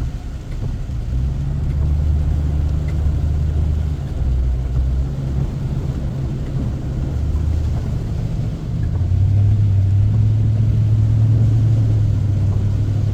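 Car engine and road noise while driving, a steady low hum that shifts up in pitch and gets louder about nine seconds in.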